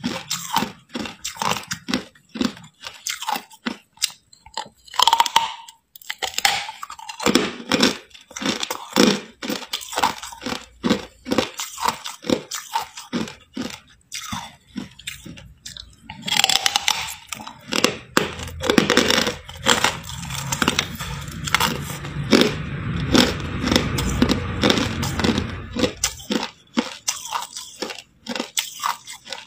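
A person biting and chewing hard ice from a thin slab, a fast run of sharp crunches. The crunching grows denser and fuller from about halfway through, then thins out again near the end.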